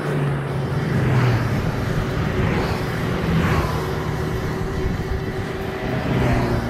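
Vehicle noise: a steady low hum with rushes of noise that swell and fade several times.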